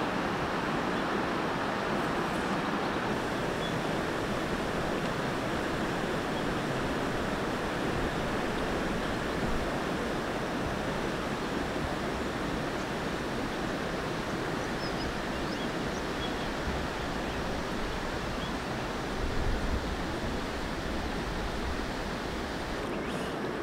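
River water rushing over rocks, a steady even rush. A brief low rumble joins it about 19 seconds in.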